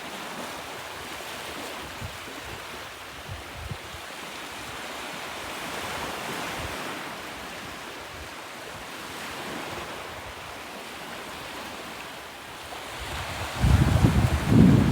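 Sea surf washing onto the shore in a steady rush that swells and eases. Near the end, wind buffets the microphone in loud, low rumbling gusts.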